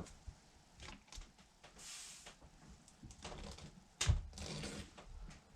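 Clicks and knocks from chainsaw parts and tools being handled on a workbench: a few light clicks, a brief hiss about two seconds in, and a sharper knock about four seconds in followed by rustling.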